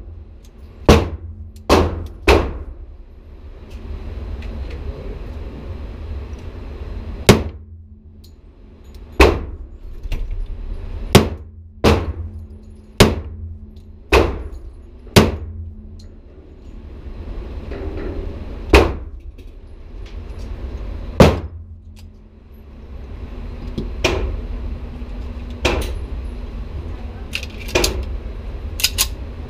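Pistol shots on an indoor range, including a Metro Arms 1911 pistol firing, about fifteen single shots one to three seconds apart, each echoing briefly off the range walls over a steady low hum.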